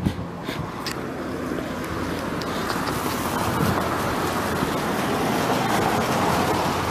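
Outdoor seafront noise: a rushing haze of wind and surf that grows louder over the first few seconds, with a few short knocks at the start.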